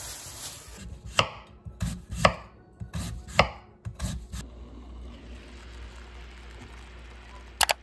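A knife slicing through a raw sweet potato and striking a wooden cutting board: about half a dozen sharp, irregular knocks over the first four seconds.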